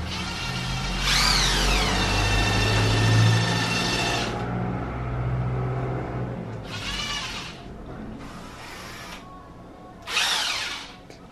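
Cordless drills revved in bursts, their motors whirring. A long run of about three seconds starts a second in, its pitch swooping up and back down before holding steady at speed. Shorter revs follow around seven seconds and again near the end.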